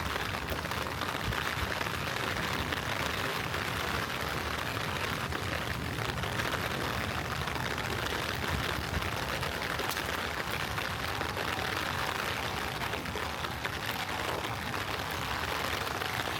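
Steady rain falling: an even hiss with many small drop taps throughout.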